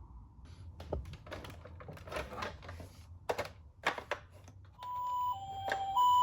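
A run of irregular clicks and taps, then about three-quarters of the way through a toy ambulance's electronic siren starts up, a loud high-low two-tone wail switching pitch about every half second.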